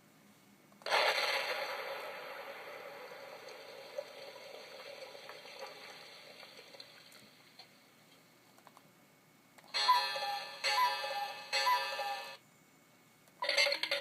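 Novelty cartoon sound-effect machine playing its effects through a small speaker. First comes a long noisy effect that starts about a second in and fades slowly. After a pause come three short clips of two descending notes, and another effect starts near the end.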